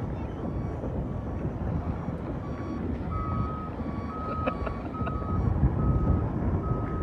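A repeating electronic beep, a short steady tone sounding a little more than once a second, over a steady low rumbling noise.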